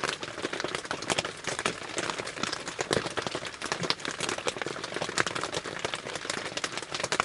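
Rain pattering on a tarp shelter roof: a dense, irregular patter of drops that keeps on steadily.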